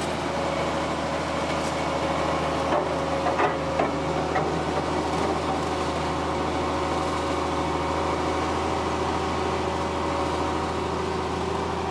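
Farm vehicle's diesel engine running steadily under way, heard from inside the cab as a constant low drone. A few brief knocks or rattles come about three to four seconds in.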